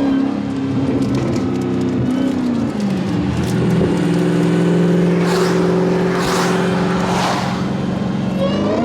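Supercharged Hellcat Hemi V8 running under steady throttle; its note drops about three seconds in, holds lower, then climbs again near the end. Three short rushing hisses come through over it in the middle.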